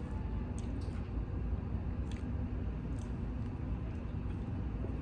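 A person eating with a fork: a few faint clicks and chewing sounds over a steady low room rumble.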